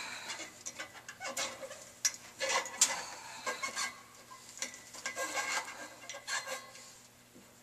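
Dust shields being pushed up evacuated glass solar collector tubes by wet fingers: irregular rubbing and scraping with light clicks and knocks against the glass.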